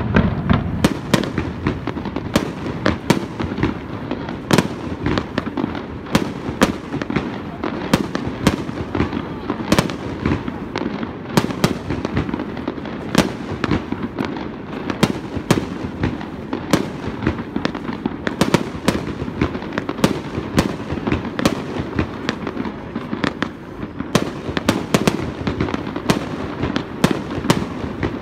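Fireworks display: aerial shells bursting one after another, a dense, irregular run of sharp bangs and pops over a steady low background.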